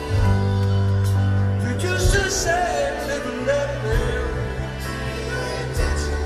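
Live rock band playing through a large outdoor PA, with sustained bass notes that shift every second or two, wavering sung or lead lines above, and repeated sharp hits.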